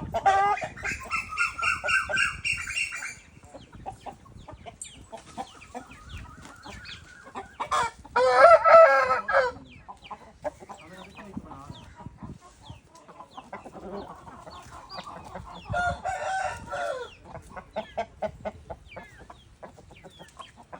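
Aseel chickens: a rooster crows three times, at the start, loudest about 8 seconds in, and again about 16 seconds in, with short clucks from the flock in between.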